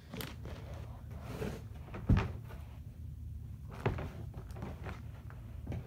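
Cardboard boxes being handled as a folded inner box is put back into the outer box: three dull thunks about two seconds apart, the first the loudest, over a low rumble.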